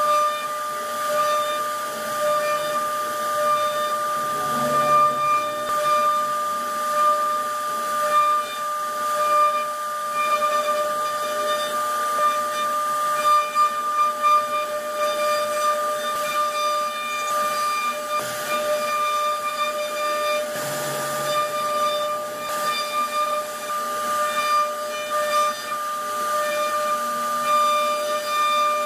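CNC router spindle running with a steady high whine while its bit carves wood, over a hiss of cutting.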